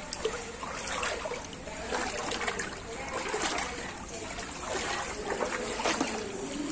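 Floodwater sloshing and splashing in irregular surges, about one to two a second, as someone wades through a flooded street.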